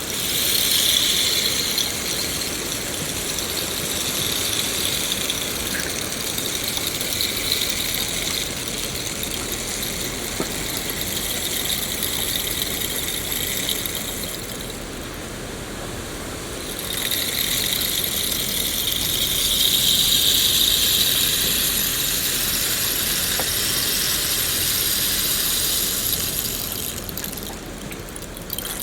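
Steady rain falling, a dense hiss that swells and fades and briefly thins about halfway through.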